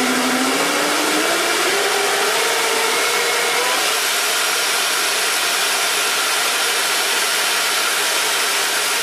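Two electric ducted fans at high power blowing air through a 3D-printed two-cylinder air engine that is running fast: a loud, steady rush of air. A pitch in it climbs over the first four seconds and then holds.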